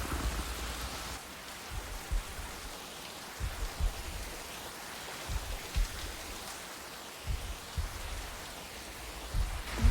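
Steady rain hiss with scattered short, low thuds.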